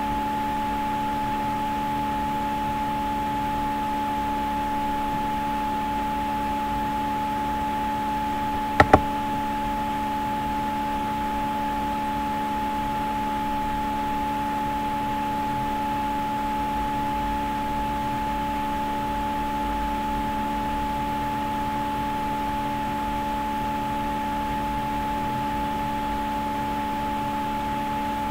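Steady electrical background hum of the recording setup: several steady tones over a light hiss. A sharp double click comes about nine seconds in.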